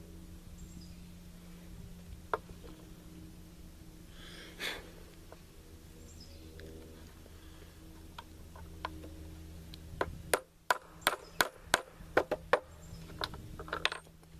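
Steady low hum with a few scattered clicks, then a quick run of about a dozen sharp clicks and taps in the last few seconds, from tools and rifle parts being handled during an AR-15 upper assembly.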